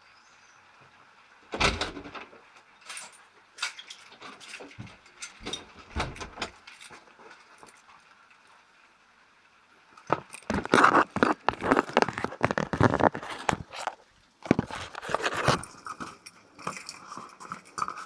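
Close handling noise from the recording device being picked up and moved: irregular knocks, scrapes and rustles right at the microphone. The noises are sporadic in the first half, then come thick and fast from about ten seconds in.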